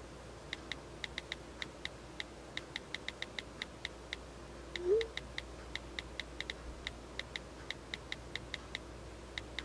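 Soft keyboard clicks from typing on a smartphone touchscreen, irregular, several a second. They pause briefly about five seconds in, when a short rising tone sounds once, and then the typing resumes.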